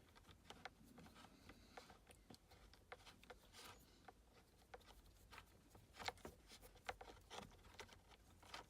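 Very faint, scattered small clicks and light scraping from hands working at close range, as a driver loosens and backs out a Torx screw.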